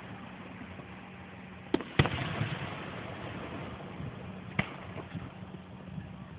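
Aerial fireworks shells bursting: two sharp bangs in quick succession about two seconds in, and another a couple of seconds later.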